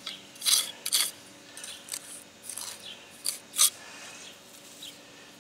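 Small steel trowel scraping patching mortar against brick and in a mortar tub: a series of short, sharp scrapes, the loudest about half a second in, at one second and again past three seconds.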